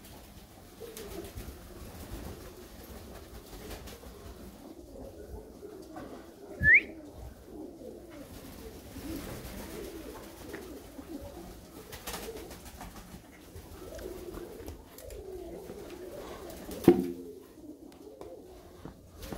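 A flock of Körös tumbler pigeons cooing steadily. A short rising whistle comes about seven seconds in, and a sudden loud burst near the end.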